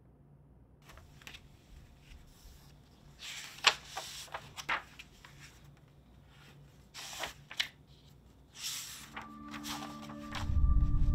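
Paper pages of a sketchbook being flipped by hand: several short rustling swishes in clusters. Near the end a low droning music swells in, with a ringing gong-like tone above it.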